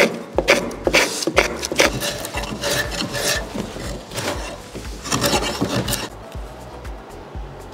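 Hand rasp filing the shoulder of a willow cricket bat where the handle joins the blade, in quick back-and-forth strokes, about two or three a second, that stop about six seconds in.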